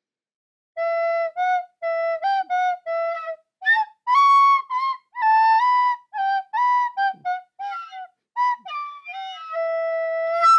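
Music: a solo melody on a flute-like wind instrument, played as a run of short, separate notes with brief gaps, cutting off abruptly at the end.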